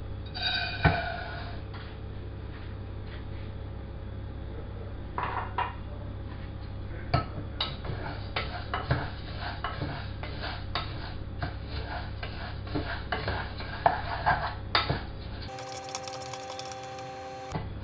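Spoon clinking and scraping against a pot as jasmine rice is stirred and fried in olive oil, with a ringing metal clang about a second in and a steady low hum underneath. Near the end a short, different clip with a few steady tones cuts in for about two seconds.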